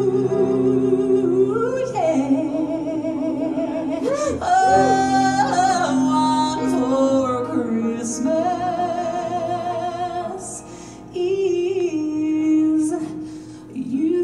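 A solo singer's voice in a high register, sung live into a microphone over musical accompaniment: long held notes with strong vibrato and quick melismatic runs, easing off briefly twice near the end.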